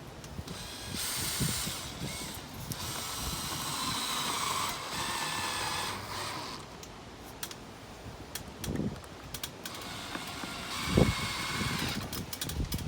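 Power drill driving screws to fasten a wooden window frame in its opening, with one long run of the motor and a second shorter run near the end, and a few knocks in between.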